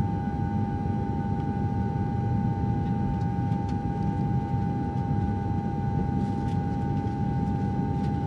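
A steady low rumble with a constant mid-pitched tone running over it and a few faint clicks scattered through.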